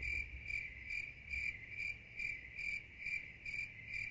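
Cricket chirping sound effect: a steady run of short, even, high chirps, between two and three a second, used as a comic 'crickets' gag for an awkward silence.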